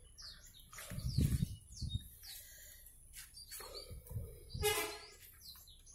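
Canaries chirping in short high calls, with a few soft bumps and a louder scratchy burst about three-quarters of the way through.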